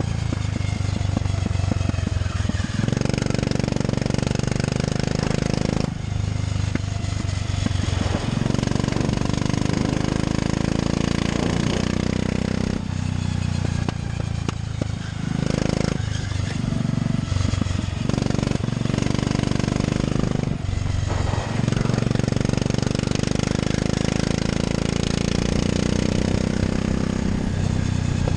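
A 13 hp go-kart engine heard from on board, running hard on the track. Its note falls away briefly several times as the throttle is lifted for corners, then picks back up under acceleration.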